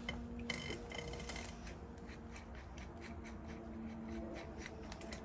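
Faint clicking and handling of tools, a run of light clicks several times a second, over a faint steady hum.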